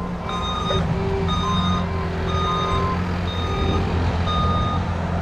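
Backup alarm of a roll-off dumpster truck beeping about once a second as it reverses, over the steady low hum of its diesel engine.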